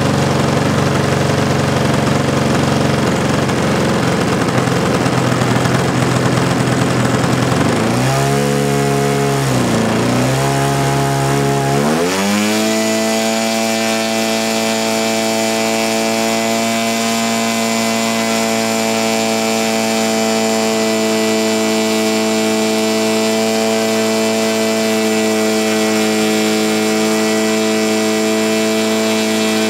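Zenoah Titan 62 single-cylinder two-stroke petrol engine of a giant-scale RC aerobatic plane running on a ground test run. It runs rough at first, drops and wavers in pitch about eight to twelve seconds in, then rises to a steady higher speed and holds it.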